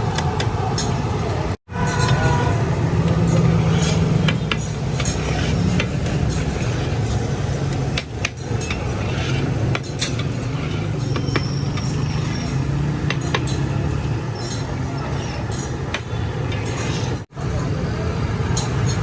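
Busy street market noise: a steady rumble of traffic with repeated sharp clinks of metal utensils.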